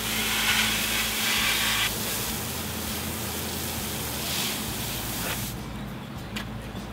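Water jetting from a hose spray wand onto a plastic mini-split air filter, a steady hiss that is loudest for the first two seconds and cuts off about five and a half seconds in.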